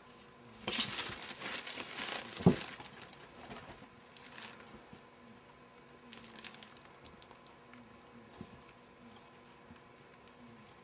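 Cardboard box rustling and scraping as a rabbit noses and shoves its flap, with one sharp knock about two and a half seconds in, then scattered faint scratches and taps.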